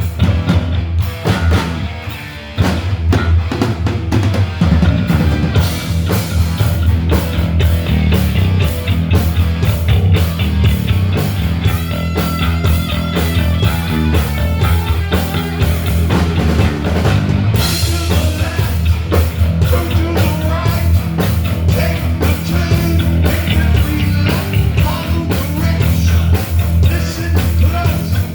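Rock music with a steady drum beat, bass and electric guitar.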